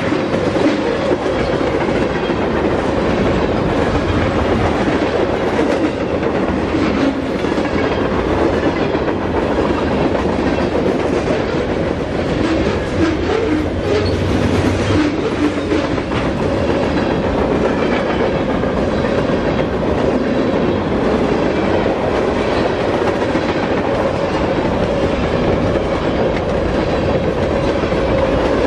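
Mixed freight train cars (tank cars, covered hoppers and boxcars) rolling past close by: a loud, steady rumble and rattle of steel wheels on rail, with repeated clicks as the wheels cross rail joints.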